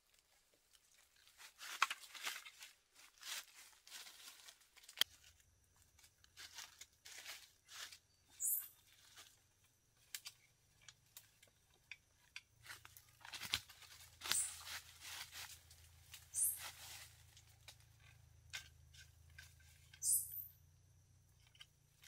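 Dry leaves, twigs and branches rustling and crackling in irregular bursts as a person pushes through forest undergrowth and handles branches. A few short, very high chirps come through about a third of the way in, around the middle and near the end.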